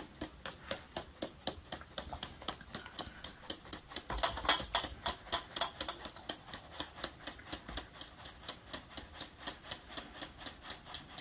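Fine metal mesh sieve full of flour tapped by hand over a steel mixing bowl, an even quick ticking about five taps a second, louder for a couple of seconds about four seconds in: flour being sifted to knock out lumps.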